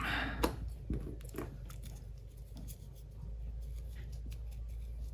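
Light clicks and taps of small plastic and rubber switch parts being handled, mostly in the first second and a half, over a steady low hum.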